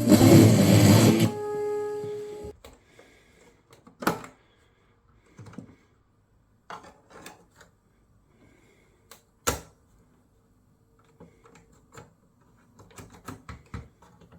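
Music playing, cut off about a second in and dying away, then scattered sharp clicks and knocks of handling work, the loudest two at about four and nine and a half seconds.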